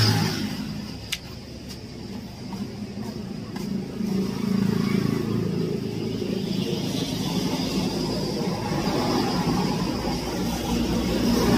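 A motor vehicle engine running, quieter for the first few seconds and louder from about four seconds in, with one sharp click about a second in.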